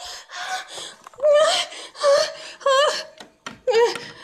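A woman crying in repeated short, shaky sobs and whimpers, with gasping breaths between them.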